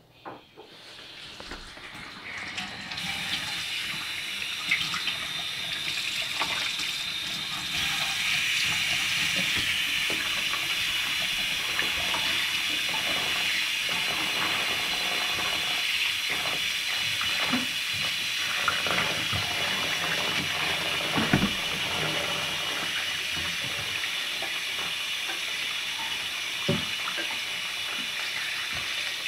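Kitchen tap running into a plastic tub in a stainless steel sink. The flow comes on about a second in and builds to a steady stream, with occasional splashes from hands washing a chicken in the water.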